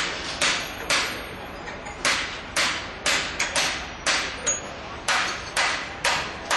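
Repeated hammer blows, about two a second in a steady rhythm, each strike sharp with a short ringing decay.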